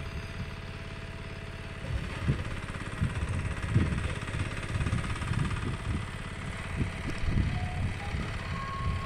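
Walk-behind power tiller's diesel engine running steadily as it tills weeds between crop rows, heard from a short way off, with wind gusting on the microphone.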